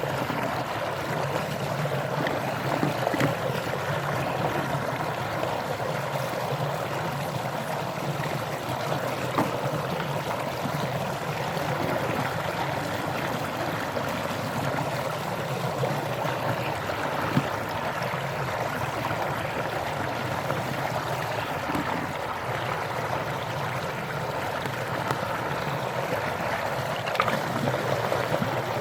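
Steady noise of flowing water, with a few faint knocks.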